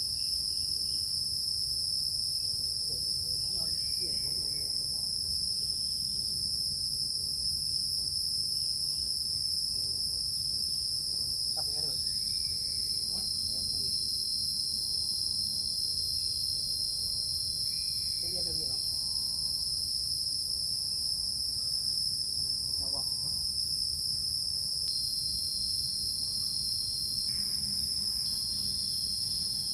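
Steady, high-pitched chorus of forest insects chirring without a break, with faint distant voices now and then.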